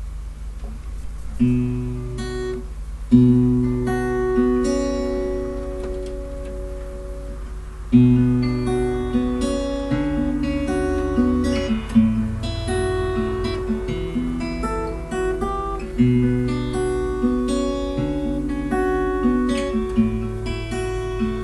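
Acoustic guitar playing an instrumental passage of strummed and plucked chords, starting about a second and a half in, with a steady low hum underneath.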